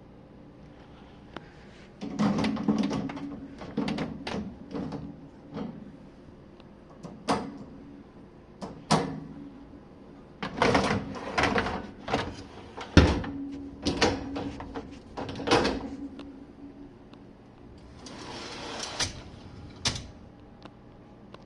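Jenn-Air dishwasher being handled, its door and racks moved: an irregular string of knocks, clatters and clicks, then a brief rushing noise and a final click near the end.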